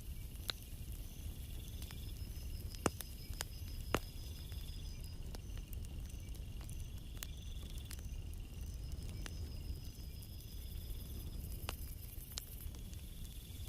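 Night insects trilling in high-pitched stretches of a second or two, over a low steady rumble of a calm sea, with a few sharp clicks scattered through.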